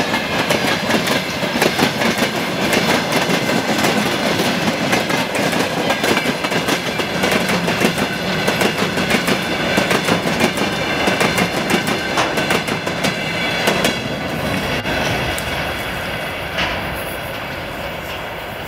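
Railway wagons rolling past, their wheels clacking rapidly and steadily over rail joints above a running rumble. The clatter thins out and fades from about 14 seconds in as the end of the train goes by.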